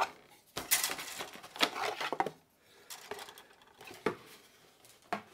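Plastic model-kit sprues clicking and rattling against each other and the cardboard box as they are lifted out, with cardboard rustling. The handling is busiest in the first couple of seconds, then thins to a few light clicks.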